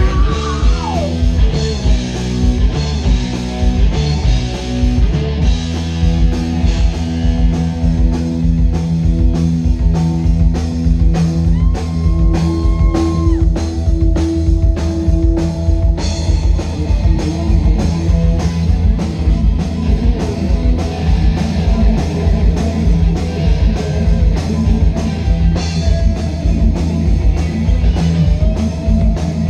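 Live rock band playing loud: electric guitars with long held notes over a steady drum-kit beat, opening with a guitar note sliding down in pitch.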